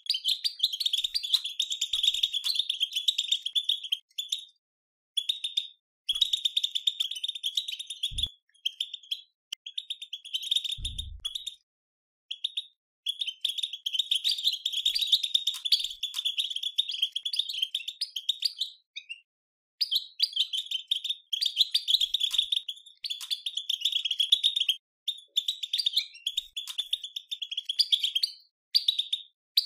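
European goldfinch twittering (batbata): rapid, high chattering in bursts of a few seconds with short breaks between them. Two dull low knocks come about eight and eleven seconds in.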